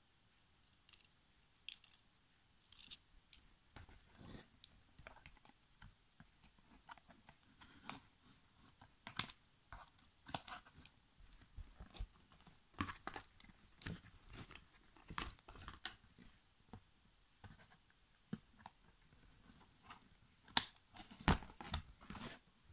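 Small die-cast toy cars and a cardboard box insert being handled: irregular scrapes, taps and clicks, sparse at first, then busier, with the loudest knocks in a cluster near the end.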